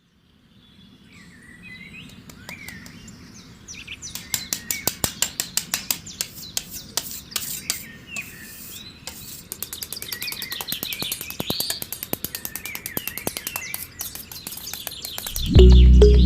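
Small birds chirping, with runs of sharp clicks, several a second, through the middle. Music starts shortly before the end.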